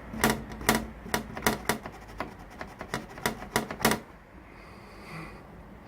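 A quick run of sharp, typewriter-like clicks, two or three a second, stopping about four seconds in.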